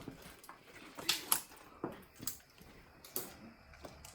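Footsteps on a torn-up, debris-strewn hospital floor: a few irregular sharp clicks and crunches, with no voices.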